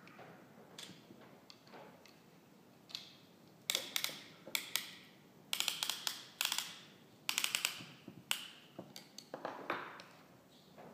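A piston ring compressor being worked and tightened around a piston by hand: runs of quick metallic clicks and rattles, the busiest from about four to eight seconds in.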